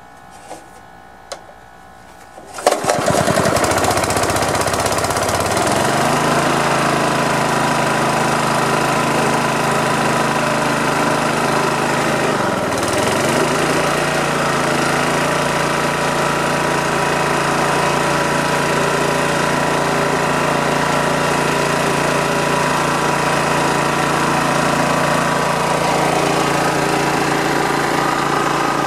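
A Honda single-cylinder engine on a gas-powered air compressor starts about three seconds in and rises to speed over a few seconds. It then runs steadily, driving the compressor pump, with one brief dip in pitch that recovers about twelve seconds in.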